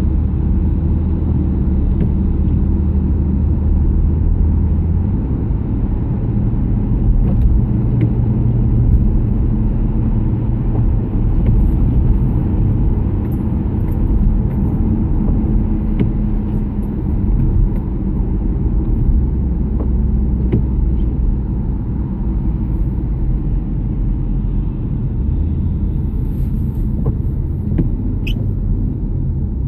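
Steady low rumble of a car's engine and tyres heard from inside the cabin while driving on a wet road. The drone shifts in pitch about five seconds in.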